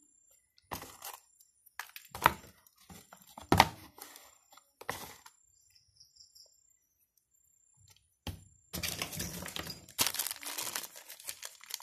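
Scattered clicks and knocks from handling a small plastic bottle and its nozzle cap. From about nine seconds in, steady crinkling of a thin plastic packet as it is handled.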